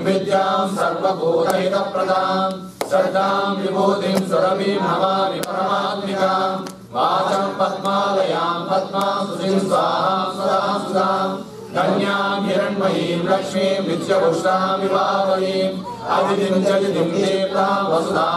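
A group of men and women chanting a Sanskrit hymn to Lakshmi in unison, led by a man's voice on a microphone. The chant comes in melodic phrases of a few seconds, with short pauses for breath between them.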